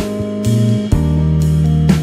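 Background music: guitar over a bass line, with drum hits about every half second.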